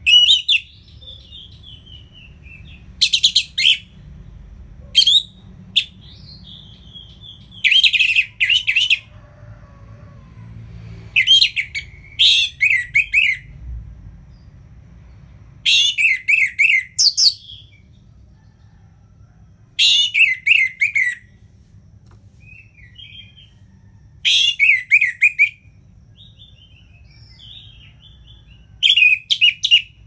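Orange-headed thrush singing its full song: loud phrases of rapid, high notes every three to four seconds, with soft twittering between them.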